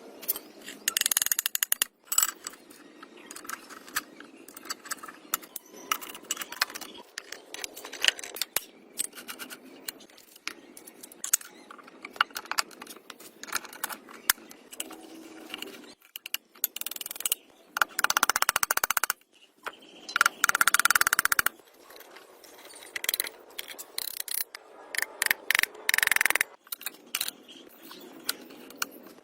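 Hand tools working on metal: irregular scraping, clicks and small knocks, with a few louder bursts of rasping scraping noise lasting a second or two each.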